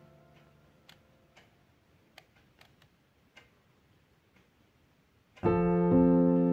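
Background piano music: a held chord dies away, leaving about five seconds of near quiet broken by a few faint clicks. The piano then comes back in loudly with a new sustained chord shortly before the end.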